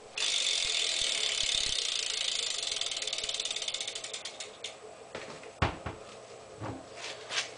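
Eastern bi-directional BMX rear hub ratcheting as the back wheel spins freely: a fast buzz of pawl clicks that slows and fades out about five seconds in. A couple of separate knocks follow near the end.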